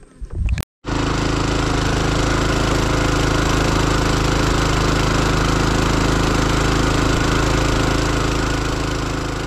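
Small wooden boat's engine running steadily under way, cutting in abruptly about a second in.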